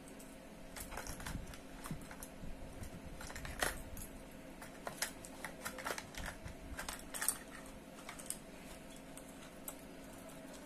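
Fishing lures and tackle being handled and rummaged through: irregular small clicks, taps and rattles, busiest in the middle and thinning out near the end.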